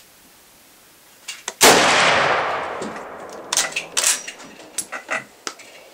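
A single rifle shot from a Mosin-Nagant M91/30 firing surplus 7.62x54R light ball, with a long echoing tail, about a second and a half in. It is followed about two seconds later by a run of sharp metallic clicks and clanks as the bolt is worked to eject the case and chamber the next round.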